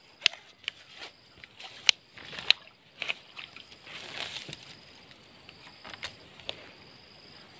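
Steady high-pitched drone of swamp insects, broken by a scatter of sharp clicks and taps as the fishing pole and a hooked climbing perch are handled and the fish is swung in to the hand.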